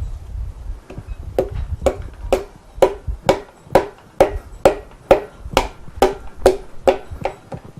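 An MGB piston being tapped down through a ring compressor into its cylinder bore: light, regular taps about two a second, each with a short ringing note.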